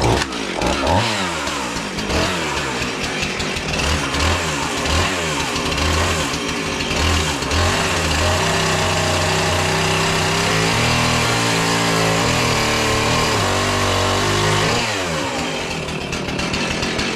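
Husqvarna 450 two-stroke chainsaw running at full loudness, revving up and down repeatedly, then holding a steadier pitch for several seconds and easing off near the end, as it trims protruding nubs off a log.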